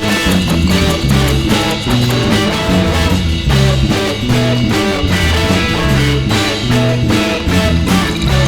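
Instrumental band music: guitar over bass and a drum kit, with a steady beat and a repeating bass line.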